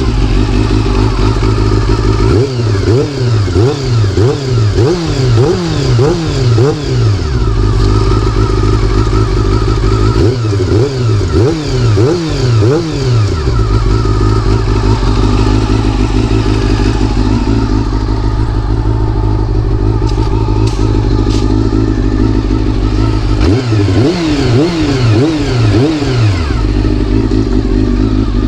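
Honda CBR400RR's inline-four engine running steadily, revved in quick repeated throttle blips in three spells: a couple of seconds in, around ten seconds in, and near the end.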